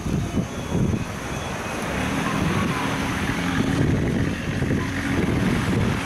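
A motor engine running steadily with a low hum that sets in about two seconds in.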